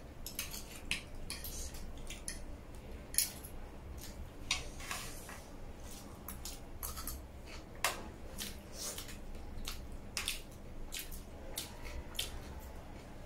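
Metal forks and spoons clinking and scraping against a steel tray in irregular clicks, with the chewing of a noodle meal.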